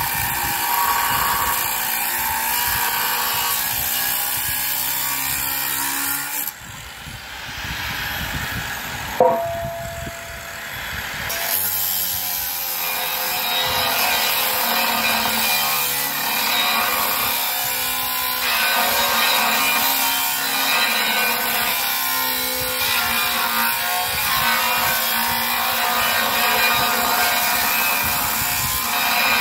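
Angle grinder with an abrasive cutoff disc cutting through structural steel, running steadily under load. The grinding drops away about six seconds in, a single sharp knock comes around nine seconds, and cutting starts again about two seconds later.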